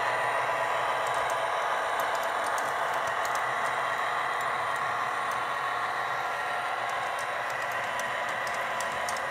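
MTH Premier O-scale model SD45T-2 diesel locomotive running on its track while pulling model subway cars: a steady mechanical running sound with light clicks from the wheels over the rails, easing slightly near the end as the train moves away.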